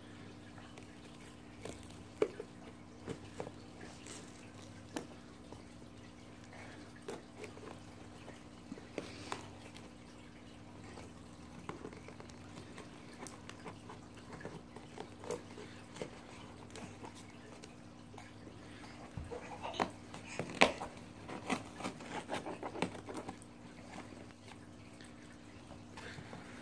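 Small scissors snipping and scraping at packing tape on a cardboard shipping box: faint, scattered clicks and taps. About twenty seconds in comes a louder cluster of knocks and cardboard rustling as the box flaps are worked open, over a faint steady hum.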